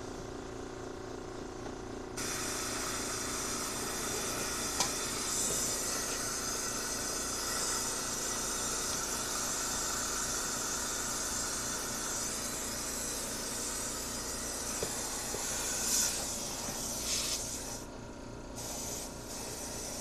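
Compressed air hissing from a rag-wrapped air hose nozzle pressed against a Cuisinart coffee maker's water tube, blowing to clear a suspected clog. The hiss starts suddenly about two seconds in, holds steady, swells in a few short pulses near the end, then drops away.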